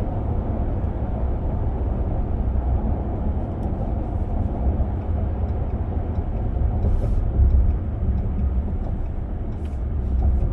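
Steady low road and drivetrain rumble heard inside the cab of a 2025 Ram 1500 with the high-output Hurricane twin-turbo 3.0 L inline-six, while it drives at an even speed. A few faint clicks come through around the middle and near the end.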